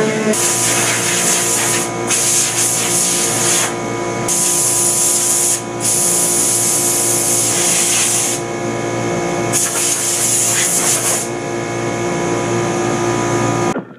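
Shop power equipment: a steady motor hum under loud hissing that starts and stops about five times, then cuts off abruptly near the end.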